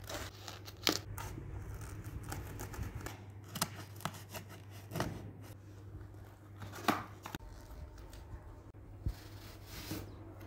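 A knife slitting the plastic shrink-wrap and cardboard of a tripod box, then the wrap and cardboard being torn and crinkled open by hand, in about half a dozen short, sharp rips and scrapes.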